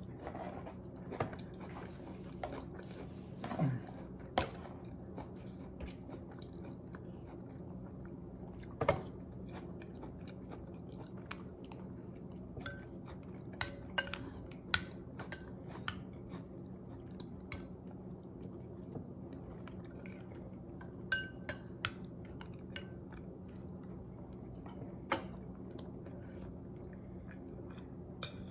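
A metal spoon clinking and scraping on a ceramic plate and bowl, scattered short clicks, with a person chewing food. A steady low hum runs underneath.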